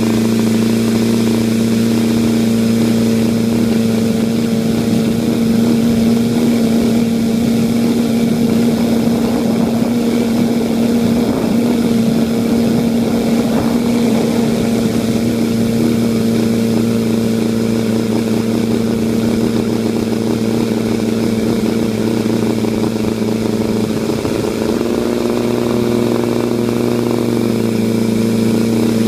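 Homemade R/C tricopter's motors and propellers buzzing steadily in flight, heard from on board. The pitch wavers and shifts midway and again near the end as the throttle changes through turns.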